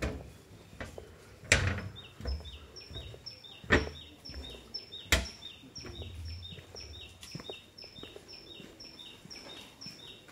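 A small bird repeats a high two-note chirp evenly, about twice a second. A few sharp knocks in the first half are louder than the chirping.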